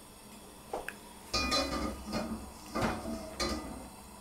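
Wok clanking and scraping against the gas stove's metal grate as it is lifted, swirled and set back down: a couple of light clicks, then a run of metallic knocks with a short ring over about two seconds.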